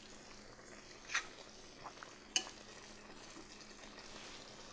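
Metal tongs lightly clinking against a red enamelled pot a few times while lifting out broccoli, over a faint steady background hiss.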